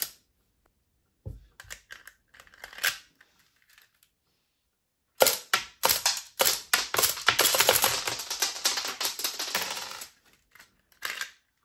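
LEGO Technic rubber-band blowback pistol: a few scattered plastic clicks, then about five seconds in a fast run of plastic clacks and clatter as it fires on full auto. The clatter includes the fake brick shells being thrown out; it stops about ten seconds in, with a few more clicks near the end.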